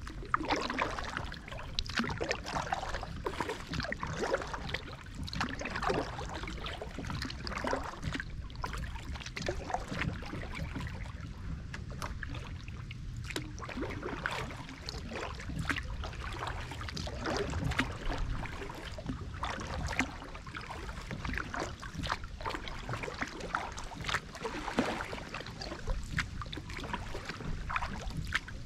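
Double-bladed kayak paddles dipping into calm creek water, with splashes and drips at each stroke, about once a second and somewhat irregular.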